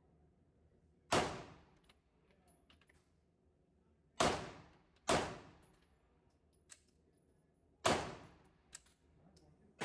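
Four gunshots at irregular intervals, each followed by a short echoing tail, with a fifth shot right at the end; faint small clicks fall between them.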